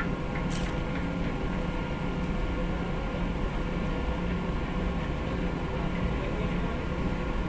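Steady low rumble of a cargo ship under way, heard from its open deck: a constant machinery hum under uneven buffeting of wind on the microphone, with one brief high tick about half a second in.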